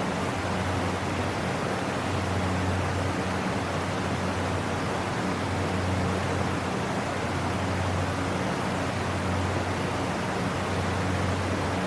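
Waterfall pouring steadily: an even, unbroken rush of falling water with a low rumble underneath.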